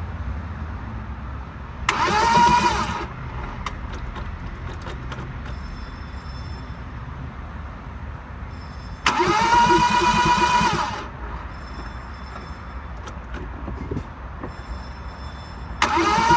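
Car starter motor cranking the engine in three separate attempts, each a whine that rises as it spins up over a pulsing chug, lasting one to two seconds; the engine does not catch, the sign of a car that won't start.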